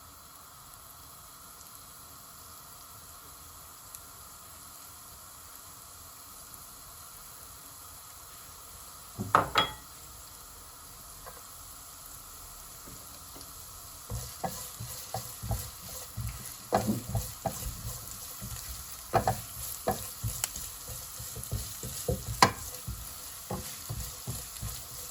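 Ginger and garlic frying in hot sesame oil in a wok, sizzling as they are stirred with a spatula that knocks and scrapes against the pan. A faint steady hiss at first, a loud clatter about nine seconds in, then frequent knocks from about fourteen seconds on.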